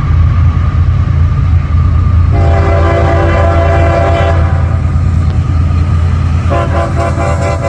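Freight locomotive's air horn sounding a chord of several notes: one long blast starting a couple of seconds in, then a second blast beginning after a brief break near the end, over the heavy low rumble of the passing train.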